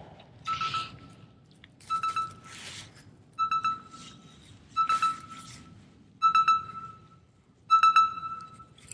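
Daiwa Luvias LT spinning reel being cranked in short bursts, six times about every second and a half: a stop-and-go retrieve. Each turn gives a brief rasp with a ringing whine.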